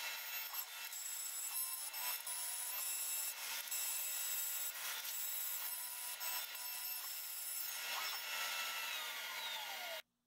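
Shop-built CNC router running, its spindle giving a steady high whine while the end mill cuts through curly maple with a continuous hissing, chattering cut. The sound stops abruptly near the end.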